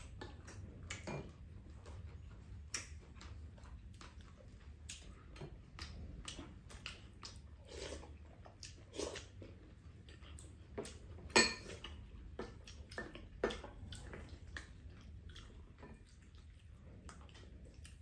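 Two people eating a stir-fry at the table: chewing, with irregular light clicks of metal spoons and chopsticks against bowls and the frying pan. The sharpest click comes about eleven seconds in.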